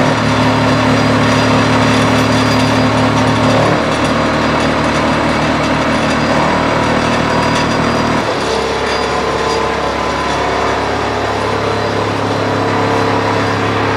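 Three-phase AC electric motor run from a variable frequency drive, turning a car's drivetrain and wheel with the differential raised off the ground: a steady, somewhat noisy mechanical whine and rumble whose pitch steps to a new level a few times as the drive's speed setting is changed. The noise comes from the suspended differential; the speakers say it runs quietly once on the ground.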